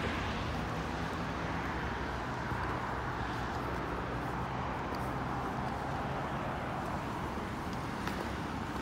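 Steady road traffic noise: cars running and passing on a multi-lane road, an even rush of tyres and engines.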